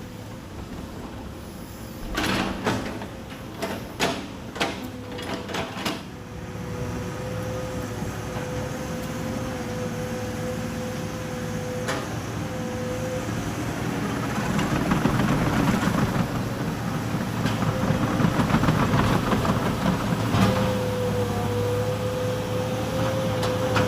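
Excavator engine running with a steady hydraulic whine. About two to six seconds in there is a series of heavy knocks as logs are shifted. From about halfway through the engine works harder and grows louder.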